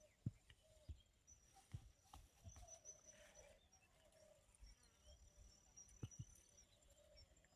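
Near silence: faint outdoor ambience with a thin steady high tone and a few soft knocks, the clearest just after the start and about six seconds in.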